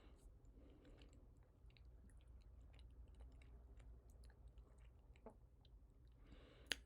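Near silence, with faint, irregular small clicks of typing on a computer keyboard.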